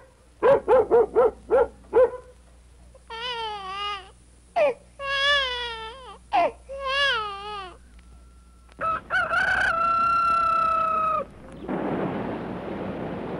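A sequence of everyday sounds: several quick pitched calls in the first two seconds, then a baby crying in three bouts, then a long steady held tone, and near the end a wash of rushing noise.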